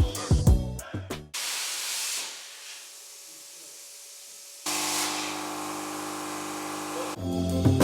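Plasma cutter cutting through a steel exhaust pipe: a loud air hiss that fades into a quieter stretch, then a second hiss with a steady electrical hum under it. Background music plays at the start and comes back near the end.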